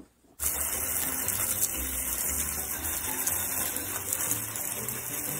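Garden hose water spraying onto plant leaves: a steady rushing hiss that starts suddenly about half a second in.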